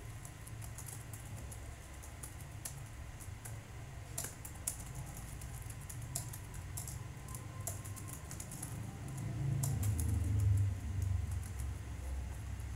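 Typing on a computer keyboard: irregular keystrokes, some in quick runs. A low rumble underneath grows louder about ten seconds in.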